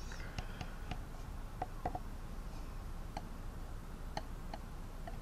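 Faint, irregular light clicks and taps of fingers handling a plastic model kit, about a dozen over a few seconds, over a low steady room hum.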